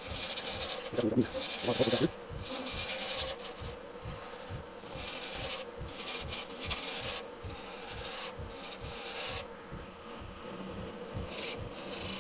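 Vintage Rockwell Delta wood lathe running with a steady hum while a narrow turning tool peels shavings off a spinning Chakte Viga spindle: a rasping hiss that comes and goes in stretches of about a second as the cut is taken and eased off. A couple of louder bumps come about one and two seconds in.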